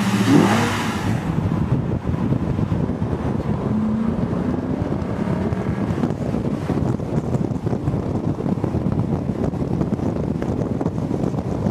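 A car being driven along a road: engine and tyre noise with wind rushing over the microphone. It opens with a brief rising engine rev.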